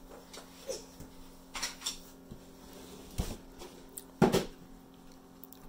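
A few short knocks and thumps from things being handled and set down on a wooden table, the loudest about four seconds in, over a low steady hum.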